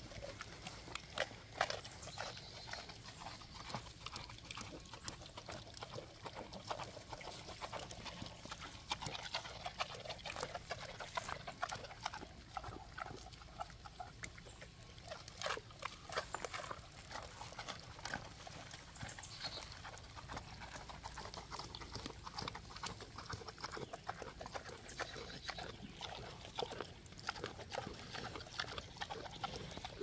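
A sow and her piglets feeding on treats: pig grunts and short high squeals over constant chewing, snuffling and rooting in the dirt.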